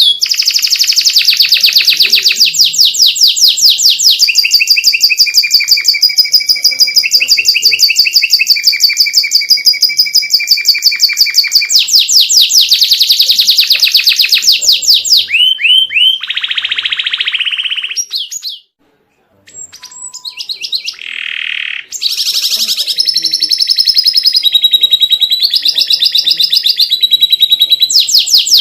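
Domestic canary singing a long, varied song of fast repeated trills, switching to a new phrase every few seconds. The song cuts out for about a second roughly two-thirds of the way through, then resumes.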